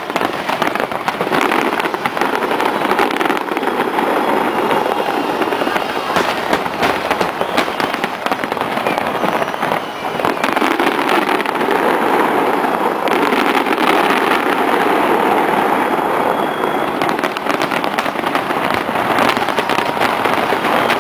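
Aerial fireworks shells bursting in a dense, continuous barrage of crackling and popping, with a short lull about ten seconds in.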